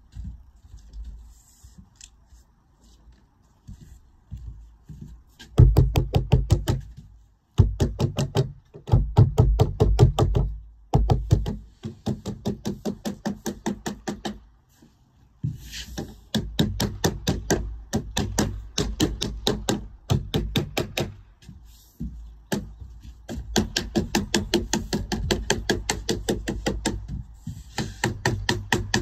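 Rapid, even tapping on sheet lead, about five strikes a second, in runs of several seconds with short breaks: code 5 lead capping being dressed into shape over the coping stones.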